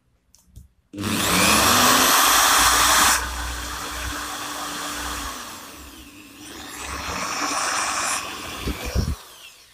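Electric drill drilling a 3–3.5 mm hole through a thin aluminium strip: it starts with a rising whine about a second in, runs loud for about two seconds, then runs quieter and unevenly while the bit cuts, and winds down near the end.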